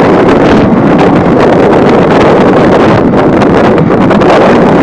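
Wind buffeting the microphone over the running noise of a moving passenger train, heard from an open door or window. A loud, steady rush with no clear beat of the wheels.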